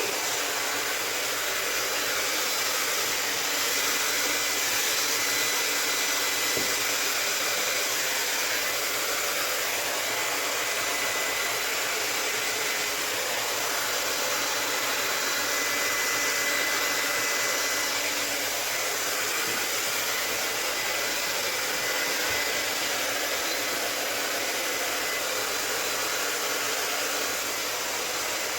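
Handheld hair dryer running steadily, blowing acrylic pour paint across a canvas: a constant rushing blow with a faint thin high whine.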